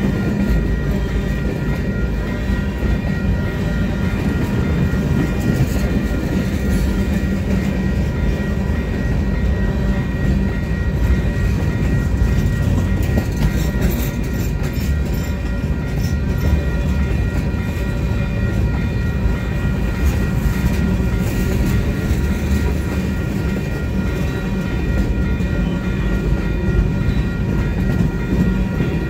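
Yellow ballast cars of a freight train rolling past close by: a steady rumble of steel wheels on the rails, with scattered clicks and a thin steady ringing tone above it.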